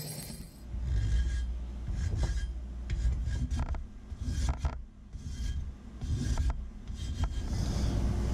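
Hand sharpening of a steel axe-head edge: an abrasive rubbed along the steel in a series of uneven strokes, with low bumps of handling in between.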